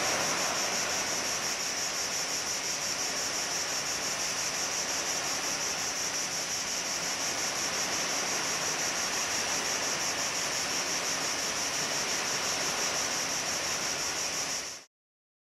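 Gentle surf washing onto a sandy beach, a steady hiss of small waves, with a constant high-pitched pulsing buzz over it. The sound cuts off abruptly near the end.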